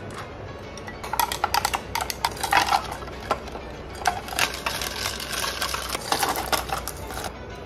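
A pellet sweetener dispenser clicked again and again over a glass, acting up, in quick runs of sharp clicks; then a spoon stirring and clinking against the glass of coffee.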